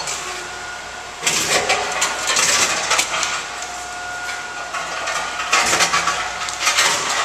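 Tomra T-53 reverse vending machine whirring as it finishes a transaction and prints the receipt: a mechanical whir with a faint steady tone starting about a second in and lasting about three seconds, then shorter bursts of the same whir.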